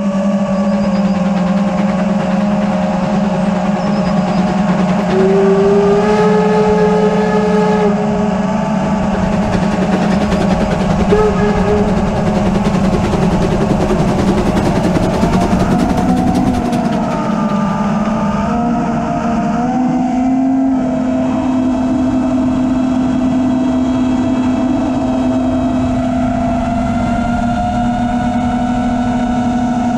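FPV quadcopter's motors and propellers whining steadily, several close tones that drift in pitch with the throttle and step up in pitch about twenty seconds in.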